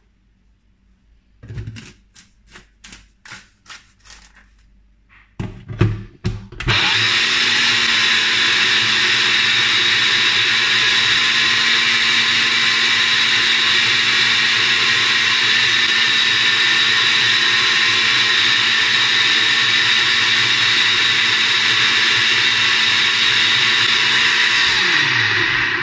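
Sencor Nutri Blend 1000 W personal blender. It starts with a run of light clicks and then a few knocks as the cup is handled and set onto the motor base. About seven seconds in, the motor starts and runs steadily at full speed through a thick purée, then winds down near the end.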